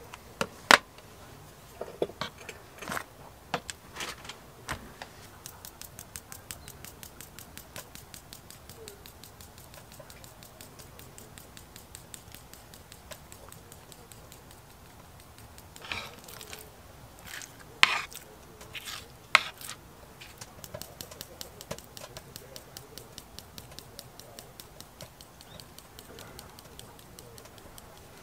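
Metal tongs click as raw pork neck steaks are set onto a wooden plate, a few sharp knocks. Then comes a fast, even ticking of a small hand grinder twisted over the meat to season it, with a few louder knocks about two-thirds of the way through.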